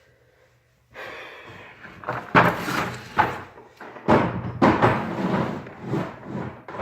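Several sharp knocks and bangs about a second apart, with scraping and rustling between them, starting about a second in after a short stretch of near silence.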